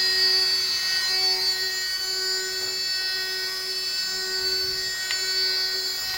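DIY CNC milling machine's spindle running with a steady high whine while milling aluminium, a lower tone under it coming and going at fairly regular intervals. A brief tick about five seconds in.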